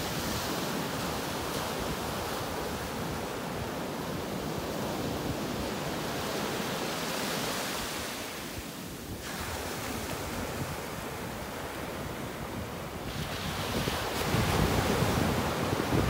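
Ocean surf: waves breaking and washing in over the shore in a continuous rushing hiss. It dips briefly about halfway through and swells louder as a wave breaks near the end.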